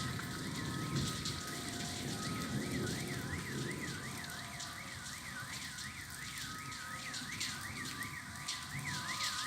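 A high warbling tone that wavers up and down about twice a second, alarm-like, with fainter steady tones under it, over a low noisy rumble that fades about halfway through.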